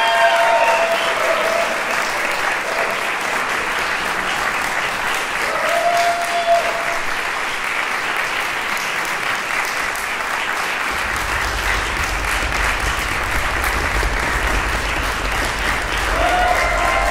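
Audience applauding steadily, with a brief cheering shout about six seconds in.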